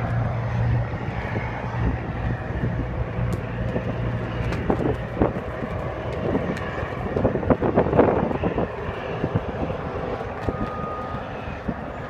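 Sand plant machinery runs with a steady low hum, heard through rough, gusting wind noise on the microphone; the hum drops away about halfway through while the gusts keep surging.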